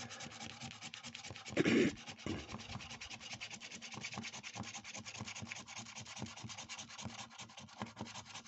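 Scratch-off coating of a lottery scratchcard being scratched away with fast, repeated short strokes. There is one louder scrape a little under two seconds in.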